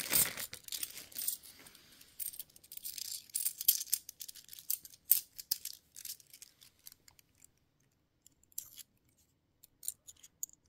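50p coins being handled and sorted by hand: a busy patter of small clicks, clinks and rustles for the first few seconds, thinning out to a few scattered metallic clinks.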